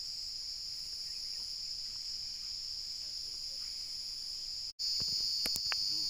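A steady, high-pitched chorus of insects droning without a break. About three-quarters of the way through it cuts out for an instant and comes back louder, with a few short sharp clicks just after.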